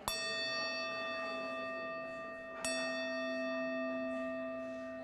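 Metal singing bowl held in the palm and struck twice with a striker, about two and a half seconds apart, each strike ringing on with several steady tones that slowly fade.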